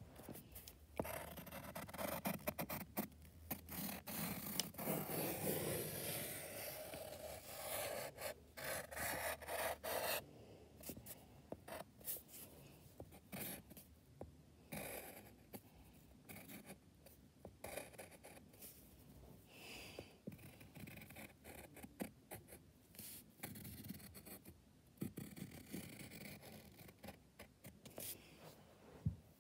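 Graphite pencil scratching across paper in short, uneven strokes as lines are drawn. The strokes come thick and fast for about the first ten seconds, then more sparsely.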